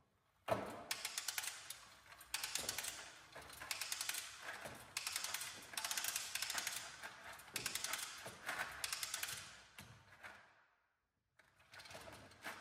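Spring-loaded retractable pressure washer hose reel ratcheting: rapid clicking in repeated runs of a second or two as the hose moves on and off the drum, with a short pause near the end before it starts clicking again.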